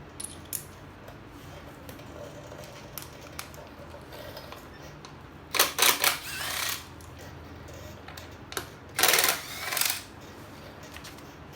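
Hand ratchet driving a 1/4-inch Allen socket, clicking rapidly in two short bursts about five and a half and nine seconds in while backing out the air cleaner cover bolts, with small tool clicks in between.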